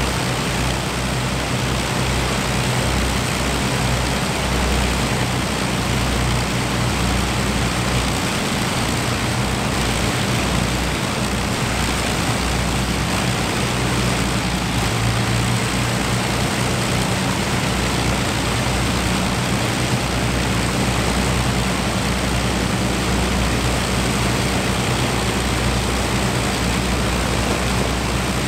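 Avro Lancaster bomber's four Rolls-Royce Merlin V12 piston engines running steadily on the ground with propellers turning, a loud, even, low drone.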